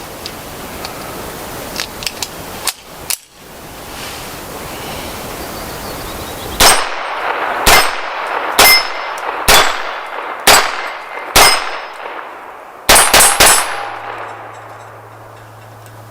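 Smith & Wesson Model 41 semi-automatic .22 LR pistol firing nine sharp shots: six spaced about a second apart, then three in quick succession. A few light clicks come before the first shot.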